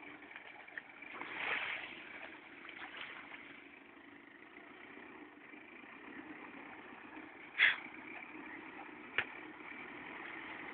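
Mitsubishi Pajero SUV's engine running steadily at low speed as it wades through deep water. Two sharp clicks come near the end.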